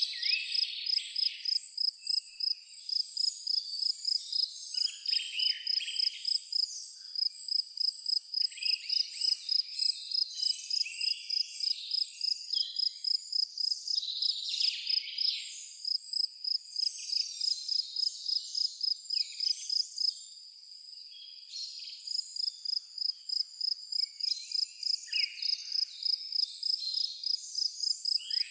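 A cricket chirping in a steady high-pitched rhythm, about three chirps a second, with songbirds singing scattered phrases over it. The chirping stops briefly about two-thirds of the way through.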